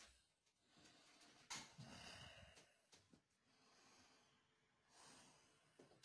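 Near silence: faint breathing close to the microphone, with one brief bump about one and a half seconds in.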